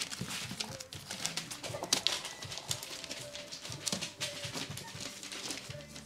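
Xoloitzcuintli (Mexican Hairless) puppies moving about on newspaper and a wooden floor: a busy, irregular run of light claw clicks and paper rustles, with a few faint short whimpers.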